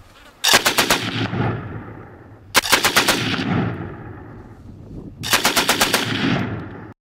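Three short bursts of automatic gunfire, each a rapid string of about six to eight shots at roughly ten a second, with echo trailing after each burst. The sound cuts off abruptly near the end.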